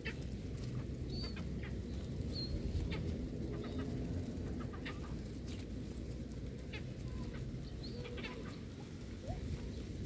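Birds calling: soft low calls and a few short high chirps, over a steady low rumble.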